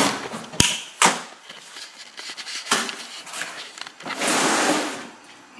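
Cardboard boxes of oil cubies being handled: two sharp knocks about half a second apart near the start, then a rough cardboard scrape and rustle lasting about a second near the end.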